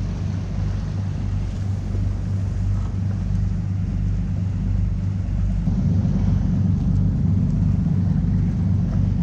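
A passing motorboat's engine running with a steady low hum, growing louder about halfway through as it comes closer.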